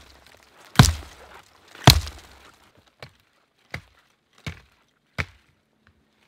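Hatchet chopping into wood: two loud, heavy blows in the first two seconds, then four lighter, sharper chops about three-quarters of a second apart.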